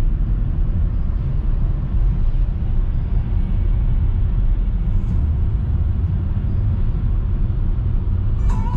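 Steady road noise inside a moving car's cabin: a low rumble of engine and tyres rolling on wet asphalt.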